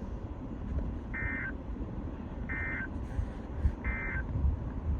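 Three short bursts of Emergency Alert System SAME data tones, a warbling two-tone digital screech about a second and a half apart: the end-of-message code that closes the alert broadcast on the radio. A low rumble runs underneath.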